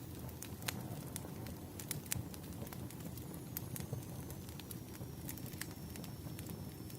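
Firewood burning: irregular sharp crackles and pops over a low steady rumble of the fire.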